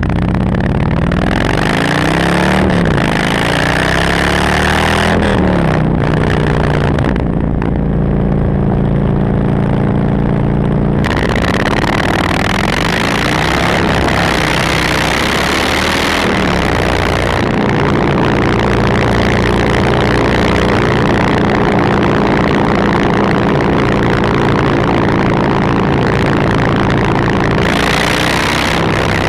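Motorcycle engine through an aftermarket exhaust, idling and being revved with several short throttle blips in the first half, then running steadily at idle.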